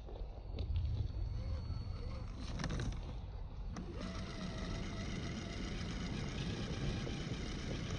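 Electric motor and gear drivetrain of an RC scale 6x6 crawler whining as it climbs loose dirt, the pitch wavering with the throttle and rising about halfway through. A few sharp clicks of stones or parts knocking come shortly before that rise.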